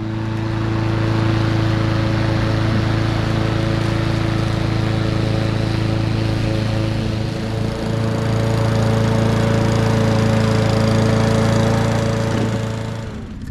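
Lawn mower engine running at a steady pitch as it mows. The note dips briefly about halfway through and fades away near the end.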